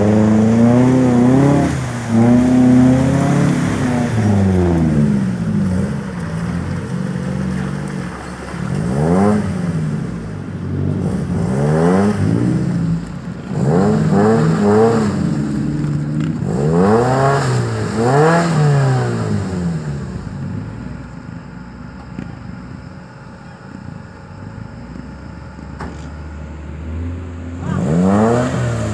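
Small 4x4 off-roader's engine revving up and dropping back again and again as it pushes through a muddy water pit. It eases off to a lower, quieter run for several seconds, then revs up again near the end.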